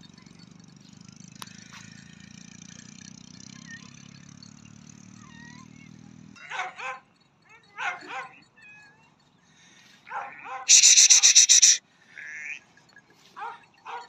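Sheep and lambs bleating in a series of short calls from about six seconds in, the loudest a drawn-out wavering bleat near the end. Before that, a low steady hum that cuts off suddenly, with faint chirps above it.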